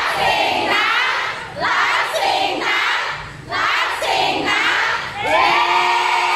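A crowd of fans, mostly high voices, calling out together in rhythmic phrases a little under two seconds apart, then holding one long drawn-out note from about five seconds in.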